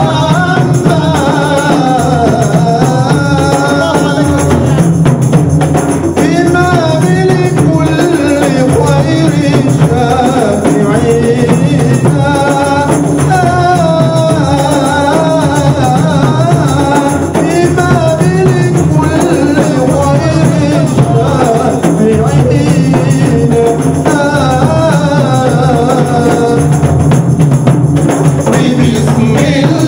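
Men singing a kassuda, a Comorian Islamic devotional song, with a lead singer on a microphone, accompanied by frame drums.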